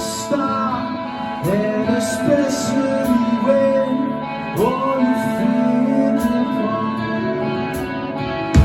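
Live band playing a song: a sung melody over guitar, with cymbal taps, and a heavy drum hit near the end.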